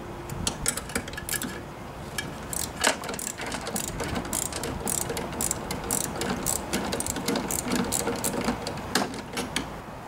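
5/16-inch ratcheting wrench clicking in quick, irregular runs as it loosens the single bolt holding a lawnmower's cable bracket.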